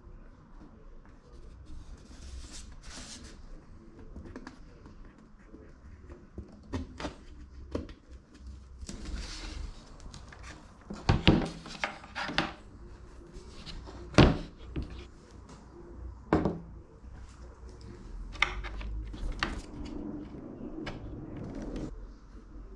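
Scattered knocks and clunks of wooden cupboard parts being handled and fitted, with a few louder sharp knocks around the middle and short bursts of scraping.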